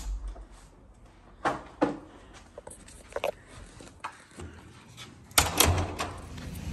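A few soft knocks and thumps, then a louder cluster of clicks and knocks about two-thirds of the way through: a hotel room door's lever handle and latch working as the door is opened.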